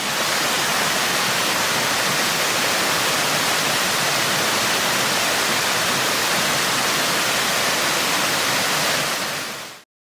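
Waterfall: a steady rush of falling water that fades in at the start and fades out near the end.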